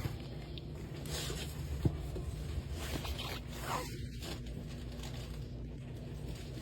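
Rustling and handling noise of small bath-product packages being picked up and moved, with one sharp click a little under two seconds in, over a steady low hum.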